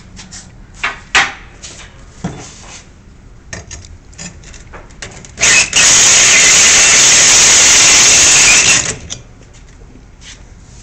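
Corded electric drill spinning a diamond hole saw into a porcelain tile: a loud, steady grinding that starts about five and a half seconds in, runs about three seconds and cuts off abruptly, scoring the start of the hole. Before it, a few scattered knocks and clicks of handling.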